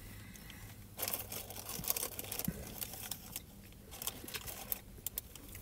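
Food packaging crinkling and rustling in short spells, about a second in and again near the fourth second.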